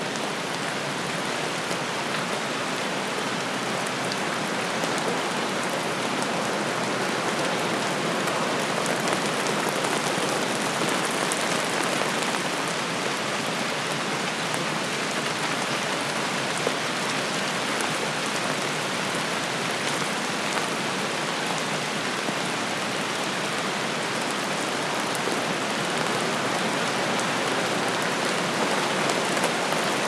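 Steady rain falling, an even hiss with a few sharper drops now and then.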